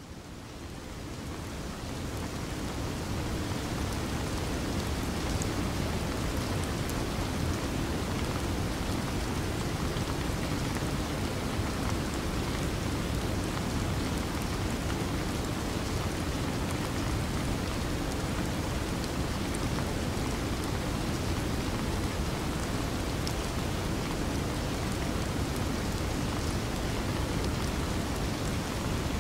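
Steady rain-like rushing noise with faint scattered ticks, swelling up over the first few seconds and then holding even.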